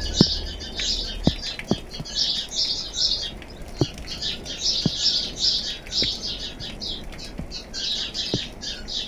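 Many small birds chirping and chattering without pause, in quick clusters of high notes. About once a second a single sharp tick sounds, like a raindrop falling on a hard surface.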